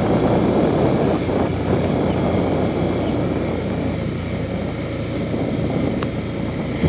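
Motorcycle riding on a dirt road: steady engine and road noise, with wind rumbling on the microphone.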